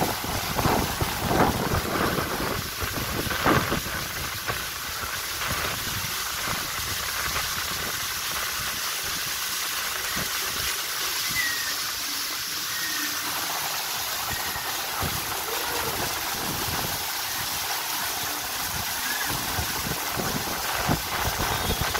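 Water jets spraying onto the fibreglass bowl of a water slide, a steady rain-like hiss.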